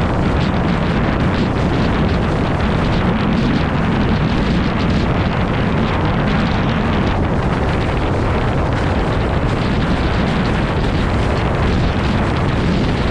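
Loud, steady rush of strong wind buffeting the microphone, with water hissing and splashing under a windsurf board planing fast over choppy sea.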